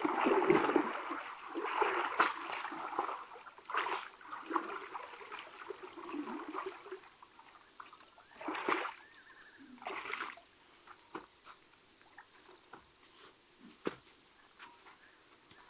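Hippopotamus wading out of shallow water, splashing and sloshing. The splashing is heaviest over the first half, with two more loud sloshes past the middle as it climbs out, then only faint scattered ticks.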